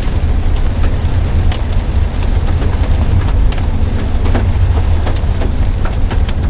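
Hailstones and rain hitting the car, heard as scattered sharp taps a few times a second over a steady low rumble.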